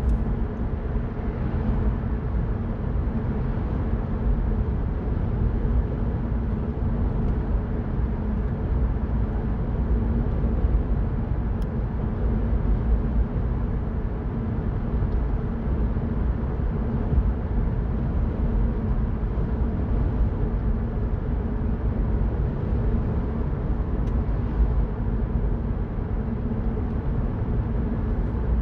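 Mini Cooper Cabrio driving at a steady pace: an even engine hum mixed with tyre and road noise, with no gear changes or sudden events.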